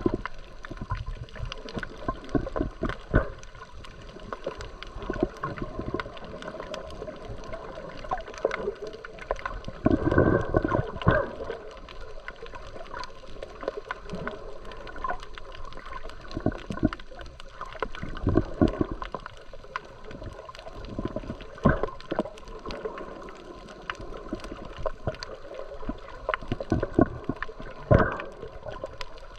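Water gurgling and sloshing around a snorkeller's camera, with scattered clicks and pops and a louder gush of bubbling about ten seconds in.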